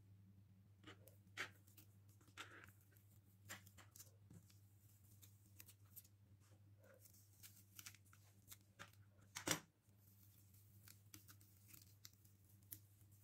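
Masking tape being peeled off the edge of a painting: faint crackling and tearing with scattered small ticks, and one sharper snap about nine and a half seconds in.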